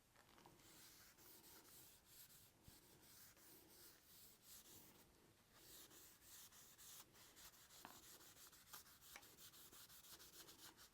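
Faint, soft rubbing of a cloth working Ballistol oil over the steel barrel of a Springfield Model 1884 trapdoor rifle. The rubbing is a quiet scratchy swish in uneven strokes, about one a second, with a few light ticks.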